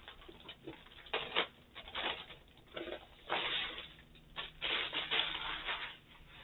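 Plastic kit packaging being handled, crinkling and rustling in several irregular bursts, the longest a little over a second long in the second half.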